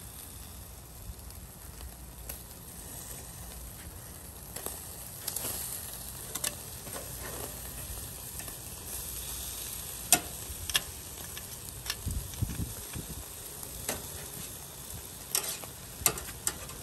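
Bone-in ribs sizzling over glowing charcoal on a wire grill rack: a steady hiss with sharp crackling pops scattered through, the loudest about ten seconds in, from fat dripping and burning on the coals.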